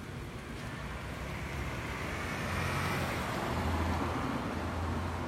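Street traffic: a motor vehicle's engine and tyre noise build up about halfway through and stay loud, with a low engine hum.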